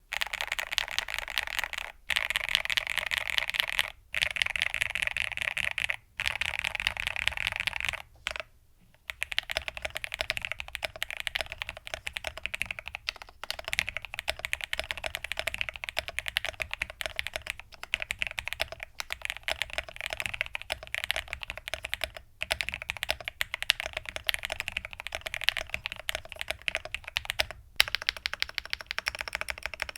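Fast typing on a stock IQUNIX Ardbeg 65 mechanical keyboard with IQUNIX Moonstone switches, an FR4 plate and a tray mount on O-rings in an aluminium case. The keys clack in four quick bursts of about two seconds each, pause briefly, then run on in steady continuous typing.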